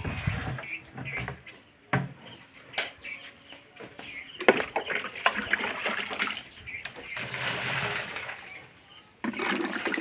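Water splashing and sloshing in a concrete cattle trough, with a few sharp knocks.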